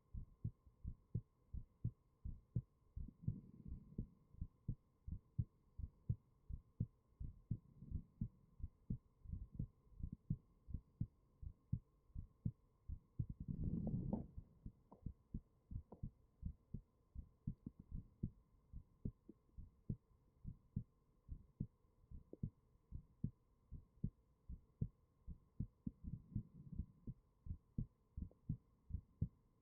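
A person's heartbeat picked up close by a binaural microphone: steady, regular soft thumps, with a faint constant hum behind. About halfway through, a brief louder rush of noise rises over the beats and fades.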